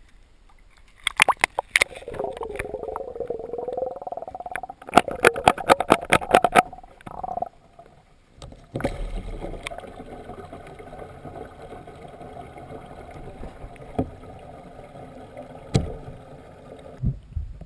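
Bathwater sloshing and splashing in a bathtub, with clusters of sharp knocks and clatters, then a steadier slosh broken by a few single knocks.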